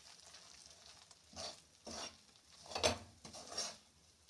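Utensil stirring and scraping through ghee and spice powder in a kadhai, about four short scraping strokes in the second half, the loudest near three seconds. A faint sizzle of the still-hot ghee is heard at first.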